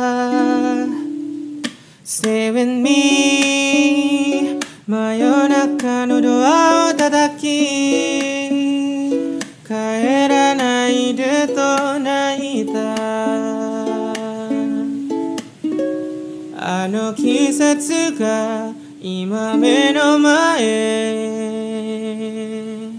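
Music: a voice singing gliding melodic phrases over plucked, ukulele-like strings, with short breaks between phrases.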